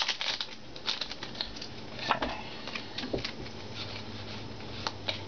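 Foil Pokémon booster pack wrapper being crinkled and torn open and the cards inside handled: an irregular run of small crackles and clicks, the loudest about two seconds in.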